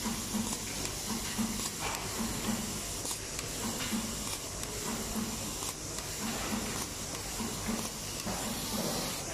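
SWT 25100H automatic cable tie gun binding wire-harness bundles: a steady air hiss with sharp clicks now and then as ties are shot through the feed hose and cinched. Under it, a low hum pulses about twice a second.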